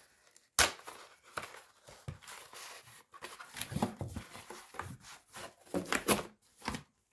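Corrugated cardboard mailer being opened and handled by hand: flaps rustling, scraping and tearing in irregular strokes, with one sharp snap of cardboard about half a second in, the loudest sound.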